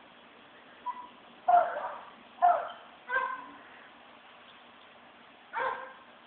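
Five short, sharp animal calls, the loudest near the middle of the run, the last after a pause of about two seconds.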